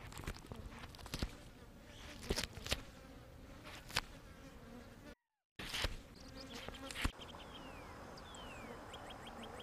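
Turkey vulture feeding at a carcass close to the microphone: irregular sharp clicks and snaps of its beak pecking and tearing, with insects buzzing. The sound drops out briefly midway, and from about 7 s a fast, even high ticking sets in.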